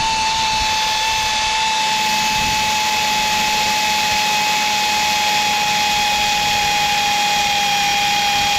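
Power ratchet wrench running continuously with a steady whine as it drives a bolt into a perforated steel truck step; the pitch sags slightly right at the start and then holds level.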